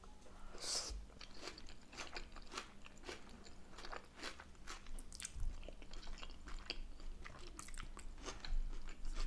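Close-miked chewing of spaghetti bolognese and garlic bread: a run of small wet mouth clicks, smacks and crunches at an uneven pace, with a faint steady hum underneath.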